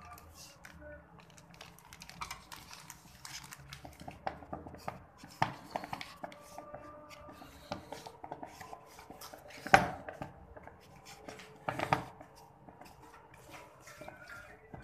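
Irregular knocks and clinks of kitchenware while doughnut dough is mixed and kneaded by hand in a bowl, with three louder knocks in the second half.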